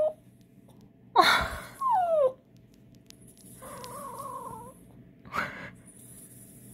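A Maltese dog grumbling: a loud rough huff, then a short whine falling in pitch, and another huff near the end. Soft laughter comes in between.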